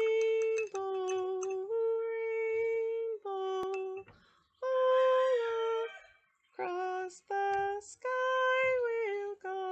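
A woman singing alone without accompaniment: a slow tune of long held notes that step between a few pitches, in short phrases with brief breaks between them.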